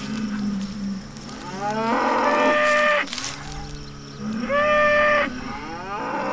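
Spanish fighting bulls bellowing: two long bellows that each rise in pitch and then hold, and a third that begins near the end.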